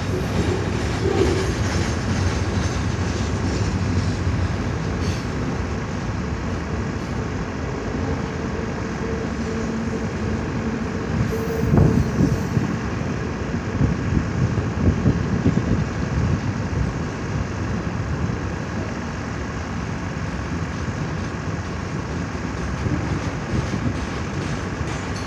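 CN train's cars rolling past, a steady rumble and clatter of wheels on the rails, a little louder for a few seconds near the middle.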